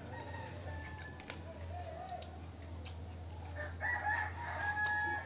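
A rooster crows once near the end, a loud call of about a second and a half. Fainter wavering calls come in the first two seconds, with light clicks of spoons on plates.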